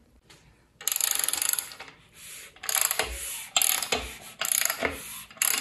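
A ratchet wrench clicking in five short runs of strokes, with a few dull knocks between them.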